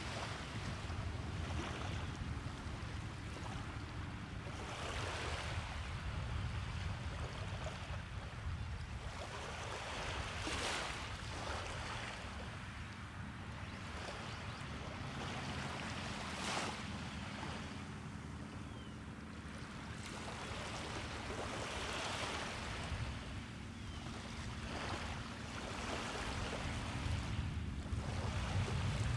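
Gulf surf: small waves breaking and washing up the beach about every five to six seconds, over a steady low rumble of wind on the microphone.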